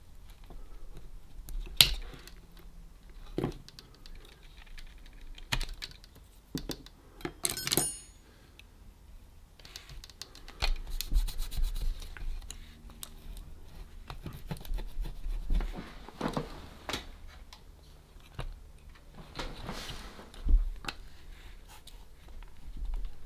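Small parts of a Roberts RFM3 radio's case being handled and worked on by hand: scattered clicks and knocks with stretches of scraping and rubbing, and a brief clatter with a light ring about eight seconds in.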